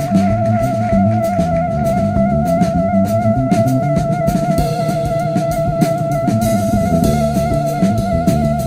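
Background music with drums and a moving bass line under one long held high note that wavers slightly in pitch.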